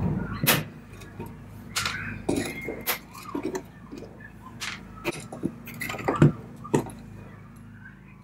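Steel tack lifter prying old upholstery tacks out of a wooden chair seat frame: about ten sharp metallic clicks and clinks at irregular intervals, thinning out near the end.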